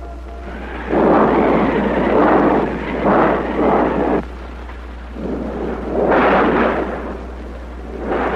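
Thunder in a series of rolling claps, each a second or two long, over the steady low hum of an old film soundtrack.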